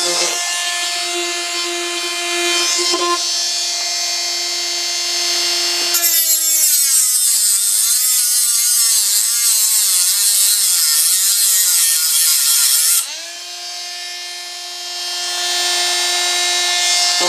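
Dremel rotary tool with a thin grinding disc, running at a steady high whine. From about six seconds in it is pressed into the protruding end of the new thread insert in the camera's mount: the motor's pitch sags and wavers under the load beneath a loud grinding noise. About seven seconds later the disc comes off the work and the whine climbs back to its free-running pitch.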